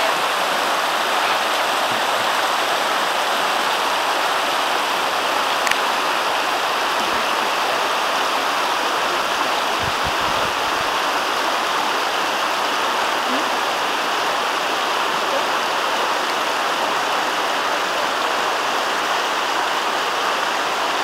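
Virgin River running high in a flash flood, its muddy water rushing steadily over rocks.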